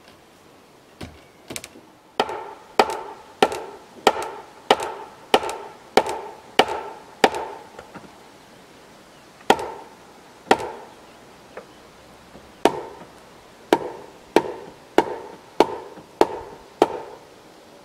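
Repeated blows struck into a joint of a round-pole timber frame, each with a short ringing knock. A run of about nine, a pause with two single blows, then a run of about seven, at roughly one and a half blows a second.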